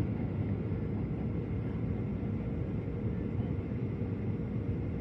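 Steady low drone of jet engines and rushing air heard inside an airliner cabin on final approach, with a faint steady hum above it.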